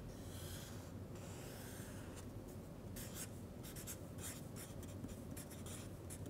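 Felt-tip marker rubbing across flip-chart paper: two longer strokes in the first two seconds, then from about three seconds in a run of short quick strokes as letters are written.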